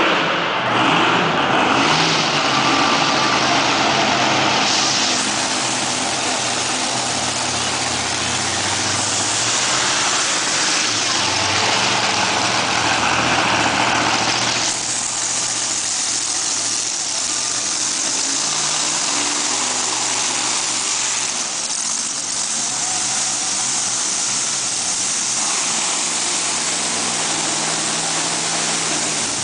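Monster truck engine running loud and steady, its pitch rising and falling now and then as it is throttled.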